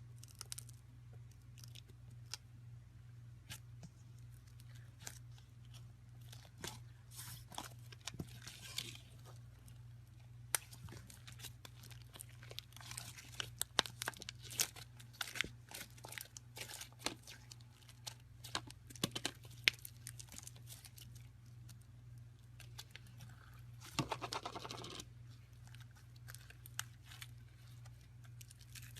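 Irregular crackling and sharp clicks, like material being crinkled or torn, over a steady low hum. A denser rustling burst comes about five seconds before the end.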